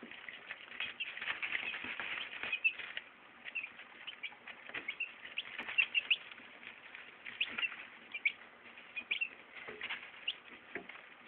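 Young chicks peeping in scattered short high chirps, busiest in the first few seconds, with light scratching and pecking in the wood-shaving bedding.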